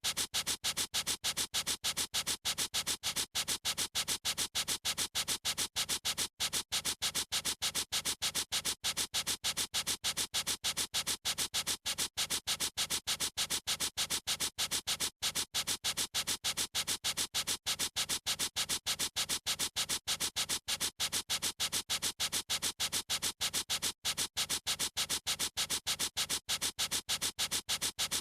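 Felt-tip marker scratching across paper in quick, evenly repeated strokes, several a second, with a dry, hissy edge.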